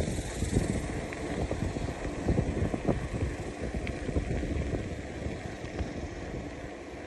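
Wind buffeting the microphone, a low, uneven rumble that slowly eases off.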